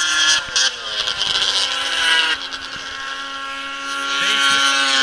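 Several 600-class racing snowmobiles' two-stroke engines running at high revs around an ice oval. About half a second in, the pitch drops as a sled passes; the engines then hold a steady high whine that grows louder near the end as the pack comes round.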